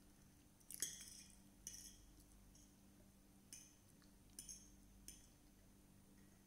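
A metal fork clinking and scraping against a ceramic plate while spaghetti is twirled, about five short, faint clinks spaced over a few seconds. A faint steady low hum runs underneath.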